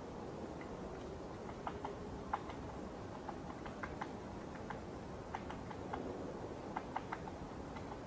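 Woodpecker tapping at wood with its bill: irregular single taps and short quick clusters, not an even drumming roll, over a steady low background hiss.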